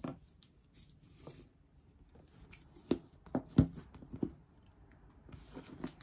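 Scissors and hands working at a taped cardboard shipping box: quiet, scattered taps and clicks with a few short scrapes of cardboard and packing tape, the sharpest knocks about three to three and a half seconds in.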